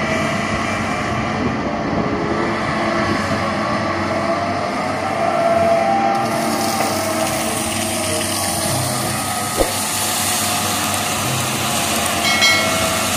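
Diesel engine of a crawler crane running steadily as it works a dragline bucket on cables and chains, with one sharp click a little under ten seconds in and a brief high squeal near the end.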